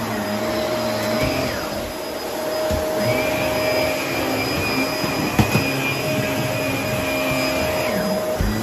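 Upright bagless vacuum cleaner running steadily as it is pushed over a rug and onto bare floor. A higher whine joins the motor hum about three seconds in and drops away near the end, and there are a couple of sharp knocks about halfway through.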